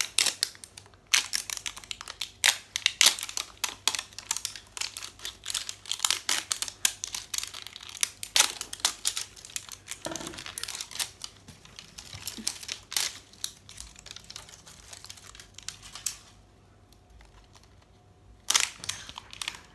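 Wrapping of an L.O.L. Surprise ball crinkling and tearing as it is peeled open by hand, in dense rapid crackles. They thin out about sixteen seconds in, with one more short burst near the end.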